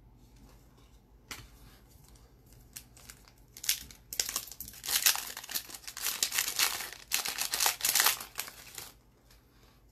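Trading-card pack wrapper crinkling and tearing as it is handled and opened. It starts as scattered faint crackles, turns into dense loud crinkling from about four seconds in, and stops about a second before the end.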